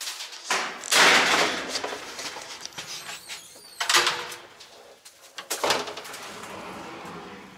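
Doors of an old elevator in a wire-mesh shaft being opened and shut: a long, loud sliding noise about a second in, then sharper clunks near four seconds and again near six.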